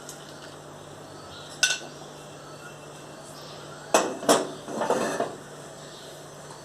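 Kitchen utensils clinking while a hot herbal decoction is strained into a cup: one sharp clink about one and a half seconds in, then two quick clinks about four seconds in followed by a brief rattle.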